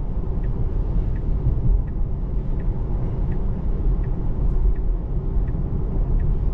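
Steady low road and tyre rumble inside a Tesla Model 3 on wet pavement, with a faint turn-signal tick about every two-thirds of a second while the car signals a move over to the right.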